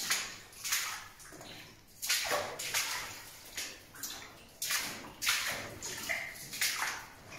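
Footsteps splashing through shallow water in a mine tunnel, a step about every half second to second.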